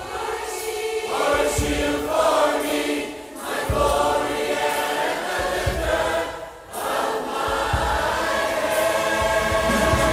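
Large mixed church choir singing a gospel song, with two brief dips between phrases, about three and six and a half seconds in.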